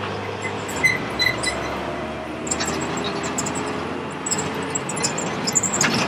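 Motorcycle engine running steadily under way, with a few short sharp high clicks.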